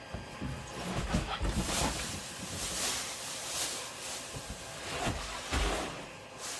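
Styrofoam and cardboard packing being handled: scratchy rubbing and scraping with a few dull thumps.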